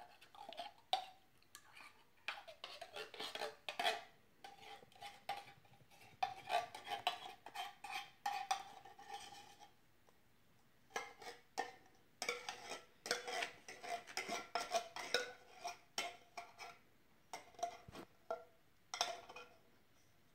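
A metal spoon scraping and knocking inside a tin can, digging out condensed cream of celery soup into a bowl: clusters of scrapes and clinks with short pauses, some strokes leaving the can ringing.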